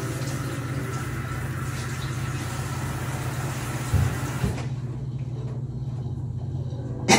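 Kitchen tap running as something is rinsed, over a low steady hum. About four seconds in there are two knocks and the water shuts off, leaving the hum, with clattering right at the end.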